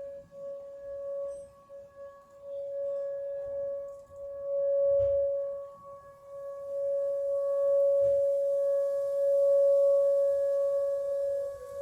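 Outdoor tornado warning siren sounding a steady tone, its loudness swelling and fading every few seconds. At the very end its pitch begins to drop as it winds down.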